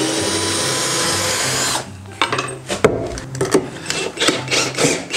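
Budget Longyun cordless drill-driver driving a screw into a wooden floorboard: the motor runs steadily for about two seconds, then stops and goes on in short bursts with clicks as the screw is driven home.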